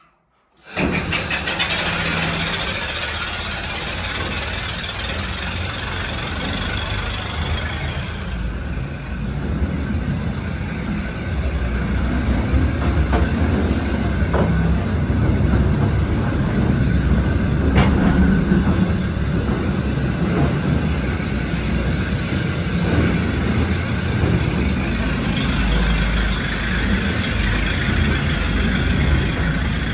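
Compressed-air mine locomotive starting off suddenly and running along rails through a rock tunnel: a loud hiss of air over the rumble and clatter of the train. The hiss eases about eight seconds in and grows strong again near the end.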